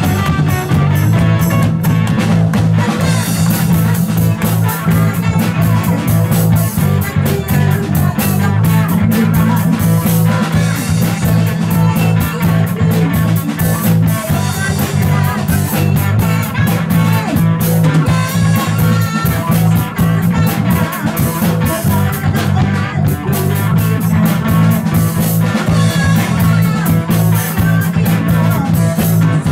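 Live rock band playing loudly: electric guitar, bass guitar and drum kit, with a woman singing into a microphone.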